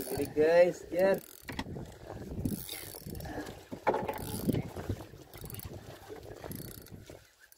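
Daiwa 3000 spinning reel being cranked on a bent rod while reeling in a hooked fish, a rapid run of mechanical clicking and scraping mixed with clothing rubbing on the microphone. Two short squeals that rise and fall in pitch come about half a second and a second in.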